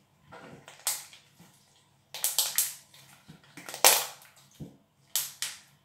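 Small orange slime being squeezed and squished in a hand, giving a string of short squelching pops in several clusters, the loudest about four seconds in.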